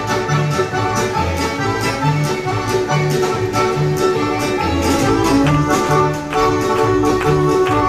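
Live band playing an upbeat tune with a steady beat and a repeating bass line.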